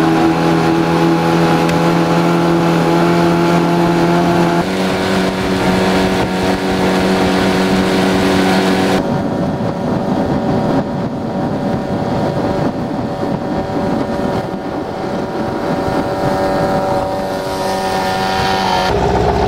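Yamaha 15 hp twin-cylinder tiller outboard running steadily under way, with wind and water rush. Its pitch steps up about four and a half seconds in, and the sound changes again at about nine seconds as the scene cuts.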